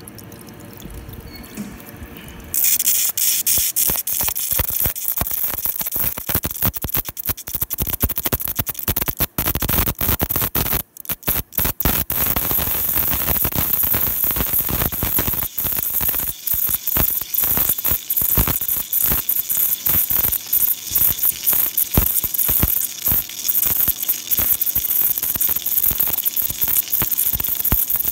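A rotating cutter in a CNC machine cutting into a steel hex nut under a coolant spray: about two and a half seconds in, a loud hissing, crackling cutting noise starts and goes on with rapid irregular clicks.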